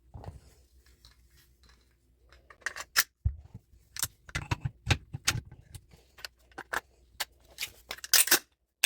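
Metal parts of a VFC T91 gas blowback airsoft rifle being fitted back together by hand: a string of sharp clicks, clacks and knocks, mostly in the second half, loudest in a quick cluster near the end.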